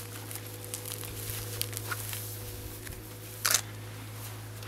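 Clothes, bags and a neoprene wetsuit being handled and pulled out of a van: rustling and crinkling with scattered small clicks, and one louder rustle about three and a half seconds in, over a steady low hum.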